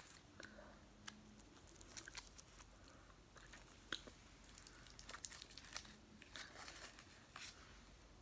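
Red foil wrapper of a chocolate candy being unwrapped by hand: faint, scattered crinkles and small crackles.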